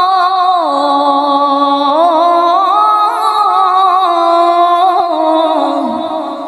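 A woman's voice in Qur'anic tilawah-style chanting, drawing out one long melismatic note with wavering ornaments and stepped changes in pitch. The note trails off about six seconds in.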